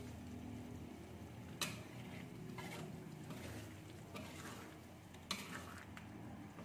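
A spoon stirring fish pieces in thick coconut-milk sauce in a stainless steel pan, with sharp clinks of the spoon against the pan about one and a half seconds in and again about five seconds in, and a few softer knocks between.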